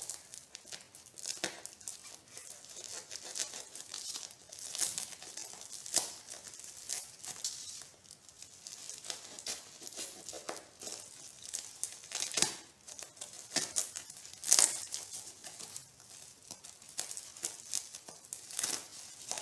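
Plastic postal mailer bag being torn open and crinkled by hand, with its plastic wrapping pulled at: irregular crackling and ripping, with a few sharper rips, the loudest about three-quarters of the way through.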